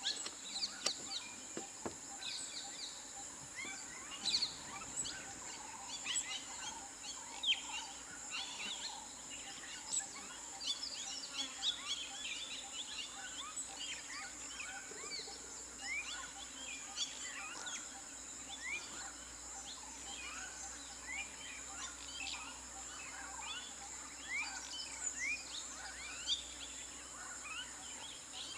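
Many birds calling at once: a constant chatter of short chirps and quick whistles, over a steady high-pitched whine.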